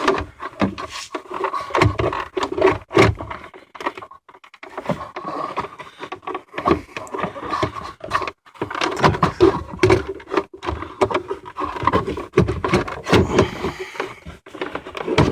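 Plastic dashboard trim and the glovebox shelf scraping and knocking as they are worked loose and pulled out, with many irregular clicks and stretches of scraping.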